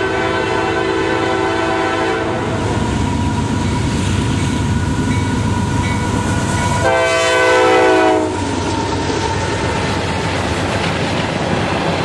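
Freight train passing close by: the lead diesel locomotive's horn sounds as it approaches and breaks off about two seconds in, then sounds again, loudest, for about a second and a half as the locomotives go by, over the rumble of the engines. After that the train's tank cars roll past with steady wheel and rail noise.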